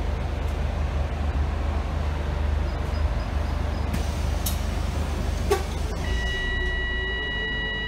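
Inside a hybrid double-decker bus standing at a stop: the engine keeps up a steady low hum, a sharp click comes about five and a half seconds in, and a steady high electronic tone starts about six seconds in and holds.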